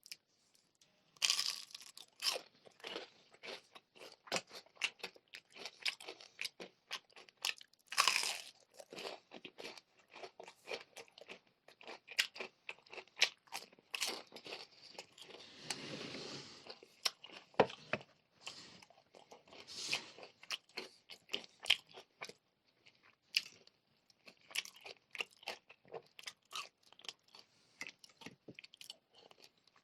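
Close-miked eating: sharp crunching bites and chewing of crispy fried chicken and spicy noodles, with loud bites about a second in and again around eight seconds, and a longer drawn-out noisy sound about halfway through.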